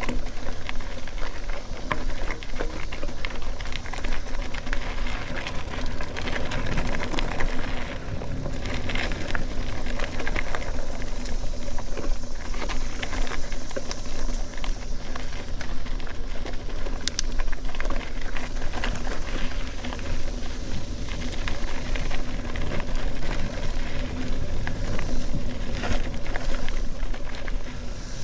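Mountain bike rolling fast over a dirt single-track trail: a steady rumble of tyres on packed dirt with constant rattling and small clicks from the bike as it goes over roots and bumps.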